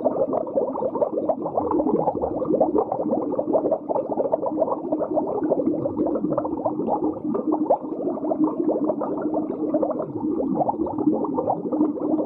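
Underwater bubbling and gurgling, a dense, continuous churn of bubbles with a dull sound and no high tones.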